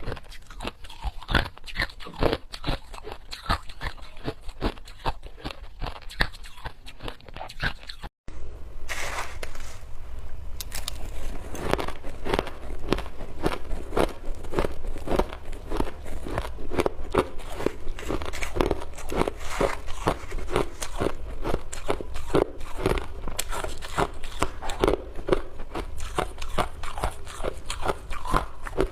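Ice being bitten and chewed close to the microphone: a dense, continuous run of crunches. About eight seconds in the sound drops out for a moment at a cut, then the crunching and chewing carry on.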